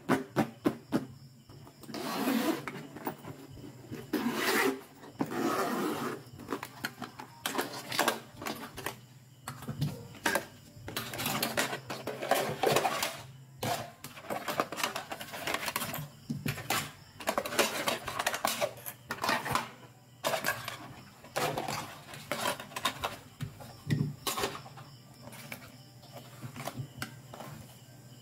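Hands handling plastic doll toys and their packaging: irregular rustling bursts broken by light clicks and taps.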